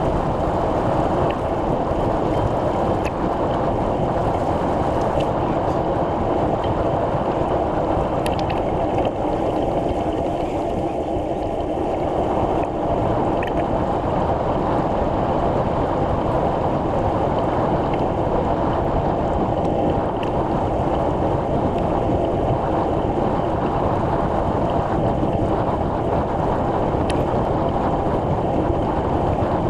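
Steady rush of wind over the microphone with road rumble from a moving bicycle, unbroken throughout.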